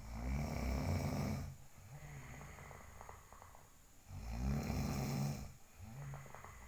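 A sleeping person snoring: two long snores about four seconds apart, each lasting over a second, with quieter breaths between them.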